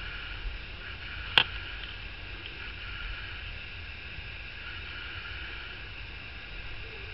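Steady background hum and hiss, with a single sharp click about a second and a half in.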